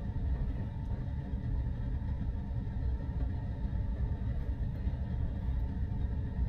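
Steady low rumble of background noise inside a parked car's cabin.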